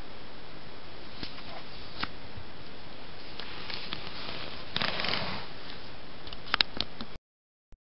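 Small doll clothes being handled and laid out over a steady hiss: light rustles and clicks, a longer fabric rustle about five seconds in and a few sharp clicks near the end, after which the sound cuts off abruptly.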